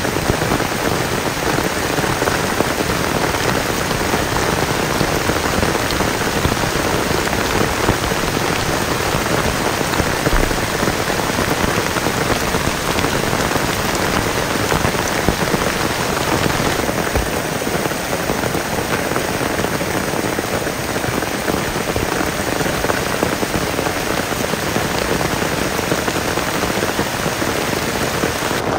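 Heavy rain pouring steadily onto grass and forest foliage, a loud, dense, even hiss.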